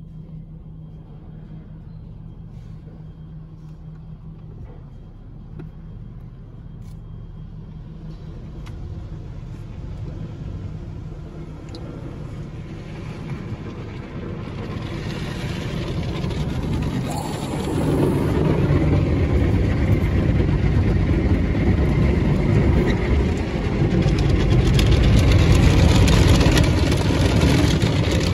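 Automatic tunnel car wash spraying water and foam onto a truck and scrubbing it with its brushes, heard from inside the cab over a low steady hum. The rushing and drumming grow steadily louder and are loudest over the second half.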